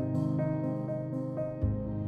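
Soft background music: gentle repeated notes on a keyboard instrument over sustained tones, with a deeper bass note entering near the end.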